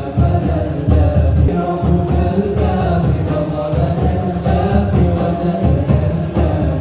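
Music: a song with a singing voice over a strong, steady bass.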